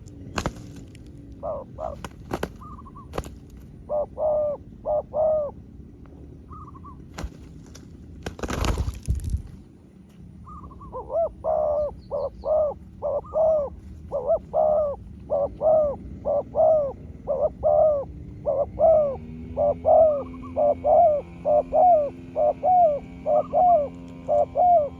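Spotted doves cooing, a decoy and a wild dove answering each other in turn: short coo phrases, a few scattered ones at first, then a long steady run of them through the second half. A short rush of noise comes about nine seconds in, with a few clicks before it.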